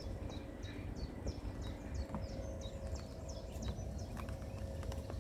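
A bird calling: a quick run of short, high notes, each sliding downward, repeated about two to three times a second.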